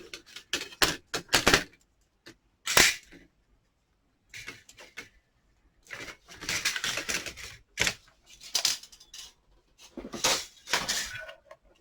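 Hand-cranked mini die-cutting machine in use: quick clicks and a knock as its acrylic plates are handled, then several scraping spells about a second long as the die-and-plate sandwich is cranked through the rollers.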